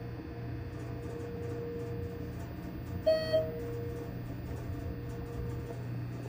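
ThyssenKrupp elevator car travelling up with a steady hum and whine from its drive; the whine dies away near the end as the car slows. About three seconds in, the car's electronic chime sounds, two quick tones.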